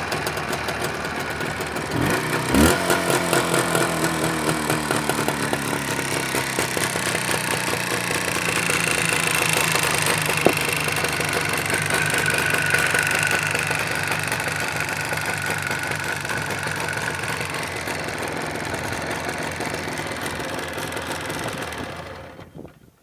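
Jawa 638's two-stroke twin-cylinder engine running, briefly revved about two seconds in, then settling into a steady run with a knock that the owner places in the left cylinder. The sound stops near the end.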